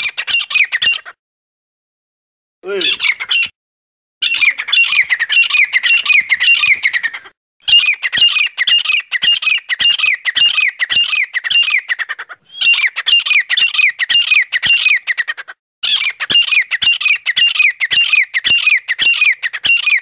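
Francolin calling in bouts of fast, harsh, squawking notes, several a second, each note sweeping down, with short pauses between bouts: a recorded lure call for game birds.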